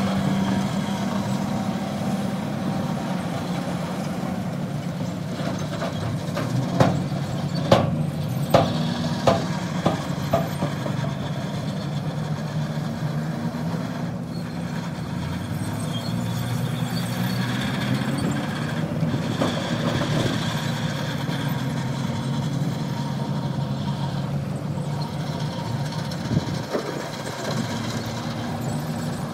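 Heavy diesel engines of a bulldozer and dump trucks running, the engine note shifting up and down, with a quick run of sharp knocks about a quarter of the way through.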